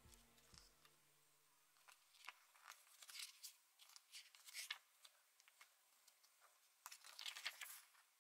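Faint rustling and swishing of a glossy photobook's pages being turned by hand, a few brief swishes with a longer rustle near the end.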